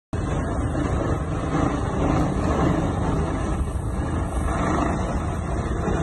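Sea waves breaking on a sandy shore, a steady rushing noise with a deep rumble, mixed with wind buffeting the phone's microphone.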